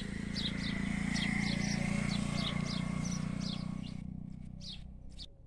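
A bird chirping over and over, short falling chirps about twice a second, over a low rumble that swells in the first two seconds and fades away near the end.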